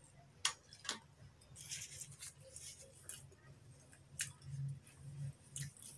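Close-miked mouth sounds of eating a chicken momo: a few sharp clicks and smacks of the lips and tongue, with softer squishy chewing between them, over a steady low hum.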